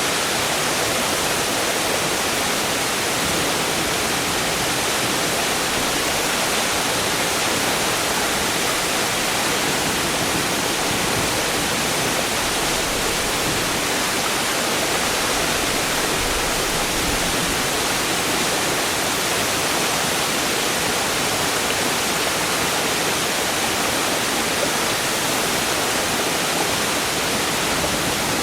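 Largish waterfall pouring with a constant hiss of turbulent water, steady throughout, with some gurgling and splashing.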